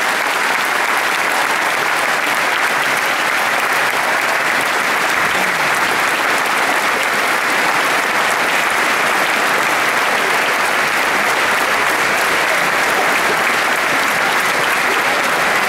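Large audience applauding steadily after a speech, a dense, even sound of many hands clapping in a large hall.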